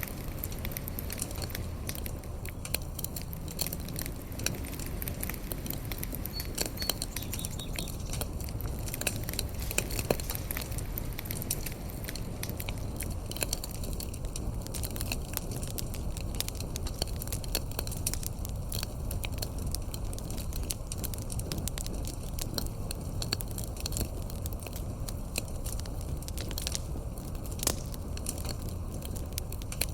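Wood fire burning, with frequent irregular sharp crackles and pops over a steady low noise of the flames.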